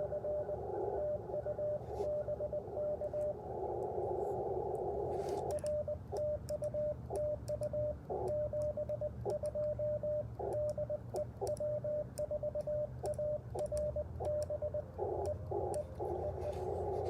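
Morse code (CW) on an Icom IC-705 transceiver: a steady mid-pitched beep keyed in dots and dashes, with faint clicks as it is sent. Narrow-filtered receiver hiss fills a pause about three and a half seconds in and comes back near the end.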